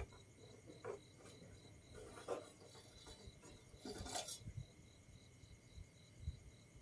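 Frogs calling in a faint, even, pulsing high trill of about four pulses a second, broken twice by louder scraping rustles about two and four seconds in.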